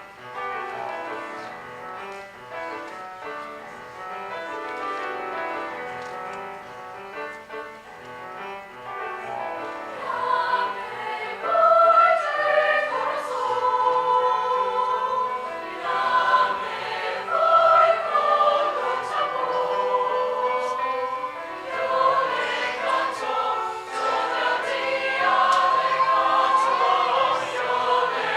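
High school chamber choir singing in several parts, getting louder about ten seconds in.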